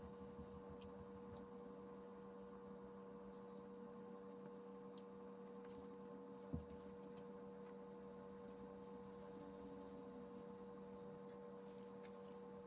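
Near silence: a steady low electrical hum, with one soft knock about six and a half seconds in and a few faint ticks.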